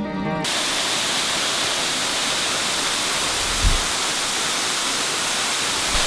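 Background music cuts off within the first half-second, giving way to the steady rush of a waterfall close by. A brief low thump comes about three and a half seconds in.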